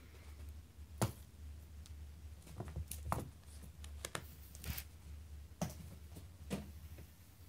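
Soft, scattered taps and thumps of a kitten pouncing on and batting at a feather wand toy on carpet, about seven in all at uneven intervals, over a low steady hum.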